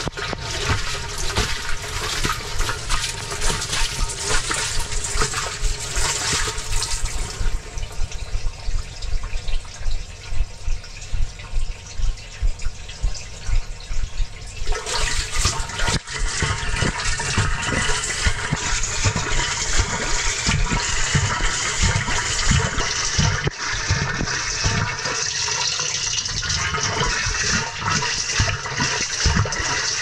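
Water and wet laundry sloshing and splashing in a washing machine's stainless steel drum as it tumbles during the wash, heard from inside the drum. The sound is steady and rhythmic, and turns muffled for several seconds near the middle.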